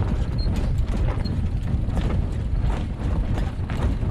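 Wind buffeting the microphone in a steady low rumble, with irregular clicks and knocks throughout, likely on deck of a sailing yacht under way.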